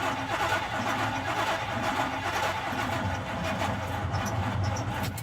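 Starter cranking the 1983 Chevrolet C10's 305 small-block V8 at an even pace without it catching, on a first start attempt after a four-barrel carburetor rebuild. The cranking stops abruptly at the end.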